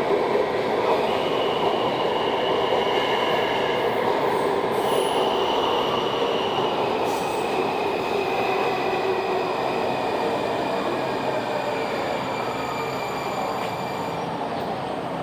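Washington Metro subway train moving through the station, with high steady squealing tones from the wheels over the rumble of the cars. A whine glides down in pitch as it slows, and the sound eases off a little near the end.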